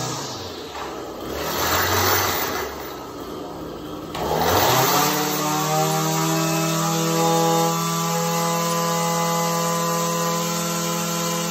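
Echo SRM-225 string trimmer's two-stroke engine, warming up after a cold start, is revved twice. It climbs to a loud high buzz each time and drops back, then settles into a steady idle from about five seconds in.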